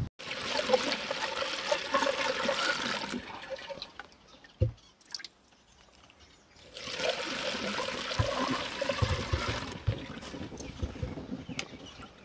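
Water being poured from a scoop into a water can at a well, in two gushing pours of about three seconds each, with a single knock between them and a few lighter knocks near the end.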